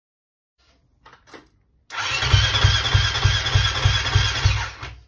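A KTM 350 four-stroke single in a monkey-bike frame being turned over on its electric starter, cranking in a regular low pulse for about three seconds and then stopping without the engine catching. A couple of faint clicks come just before the cranking.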